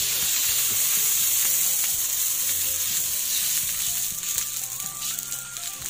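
Food sizzling loudly in a hot wok with a little cooking oil. The sizzle eases off slightly in the last couple of seconds, with scattered small crackles.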